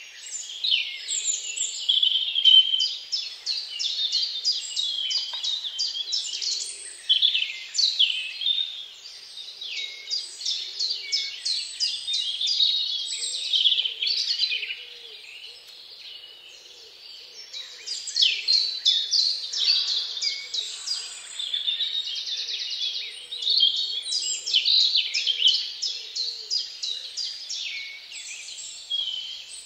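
Songbirds chirping and singing, many quick calls and trills overlapping, with a short lull about halfway.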